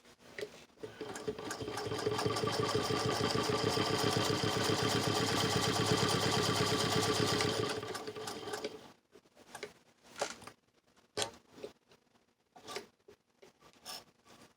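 1926 Singer 128 hand-crank vibrating-shuttle sewing machine stitching through four layers of denim. A rapid, steady clatter of needle strokes builds up about a second in, holds for several seconds and winds down near nine seconds, followed by a few scattered clicks.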